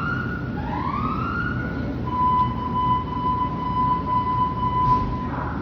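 Fire apparatus electronic siren sounding two slow rising sweeps, then a steady single tone held for about three seconds, over a low engine rumble.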